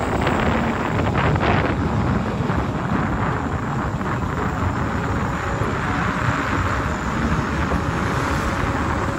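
Wind buffeting the microphone over the running and road noise of a vehicle travelling along a rough rural asphalt road, steady throughout.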